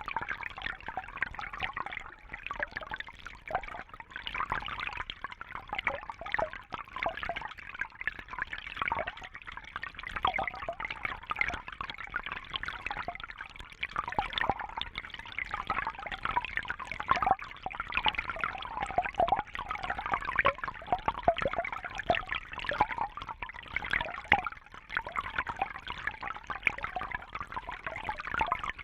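Shallow brook babbling and trickling over stones: a steady, busy gurgle of many small splashes and drips, mostly in the mid and upper range.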